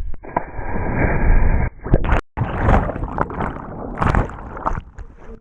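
Lake water splashing and sloshing around swimmers after a jump. It is muffled for the first second and a half, drops out briefly about two seconds in, then continues as open, uneven splashing.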